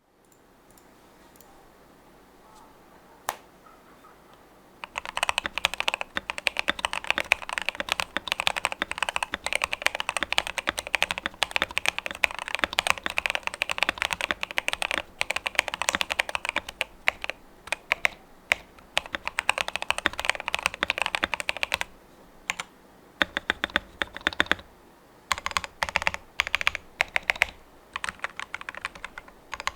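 Typing on an Epomaker TH80 mechanical keyboard modded for a softer sound, with lubed stabilizers and a case stuffed with medical wrap. One keystroke about three seconds in, then fast continuous typing until about twenty-two seconds, then a short pause and slower, spaced keystrokes and short bursts.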